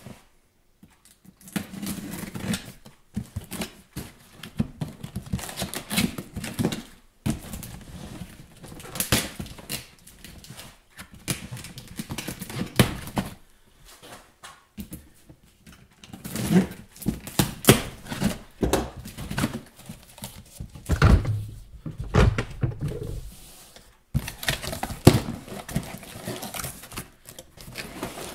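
Cardboard chainsaw packaging being opened and handled on a wooden workbench: flaps and inserts rustle, scrape and knock in irregular bursts, with sharp clicks and a few short pauses.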